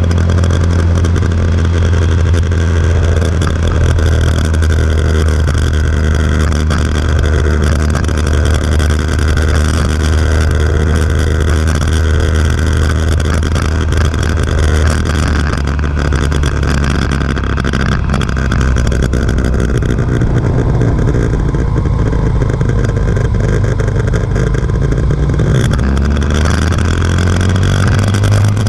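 Motorcycle engine running while riding at low town speed. The low engine note shifts about twenty seconds in and rises again a couple of seconds before the end, as the speed changes.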